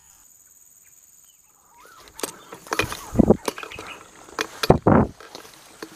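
Leaves and branches rustling and snapping as someone pushes through dense undergrowth, in a string of loud irregular bursts that begin about two seconds in.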